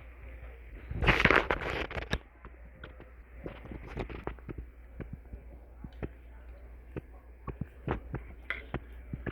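Eating sounds: scattered clicks of a utensil against a takeout container and chewing, with a louder burst of rustling about a second in.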